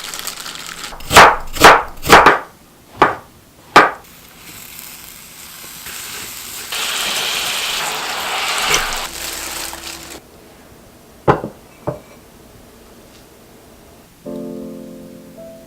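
Five loud, sharp knocks in the first four seconds, then a steady hiss from about five to ten seconds in, two more knocks, and soft piano music starting near the end.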